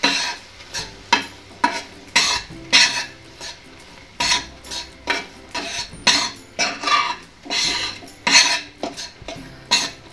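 Metal slotted spatula stirring and scraping against a frying pan, about two uneven scrapes a second, as sugar syrup is worked into ghee-roasted gram flour for besan barfi.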